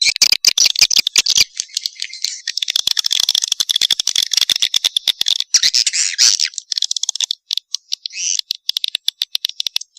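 Edible-nest swiftlet calls from a lure recording: rapid dry clicks running into buzzy, chattering twitters, with dense clicking in the first second or so and broken bursts of chatter toward the end. This is the mating-type call played to attract swiftlets to a nesting house.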